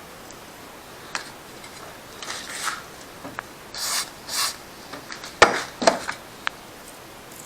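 A hand tap cutting a new thread in a cylinder head: short scraping strokes of metal on metal, with several sharp clicks, loudest a little over five seconds in.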